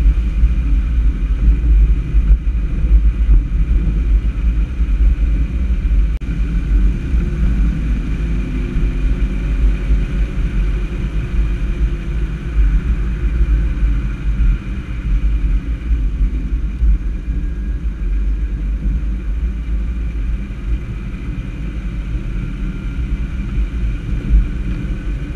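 Steady low rumble of a moving vehicle: road and wind noise with engine sound, easing slightly in loudness near the end.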